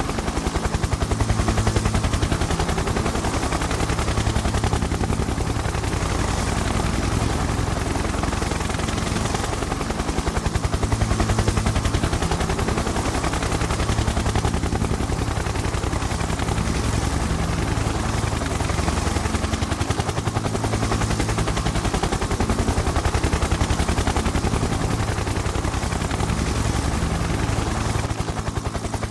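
Helicopter in flight: rotor blades chopping in a rapid, steady beat over a low steady drone.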